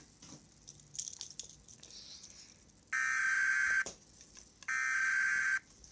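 Emergency Alert System data header: two loud, buzzy electronic bursts, each about a second long with a second's gap between them, starting about three seconds in. Before them there are only a few faint clicks.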